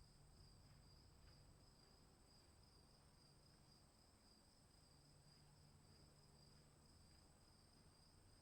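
Very faint, steady high-pitched insect trilling, crickets, in a storm ambience recording, with a low hum underneath that fades out and back in.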